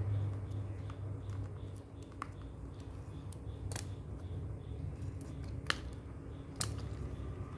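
A few sharp light clicks and small ticks from a smartphone and its small parts being handled and pried during disassembly, three of them clearly louder, over a low steady hum.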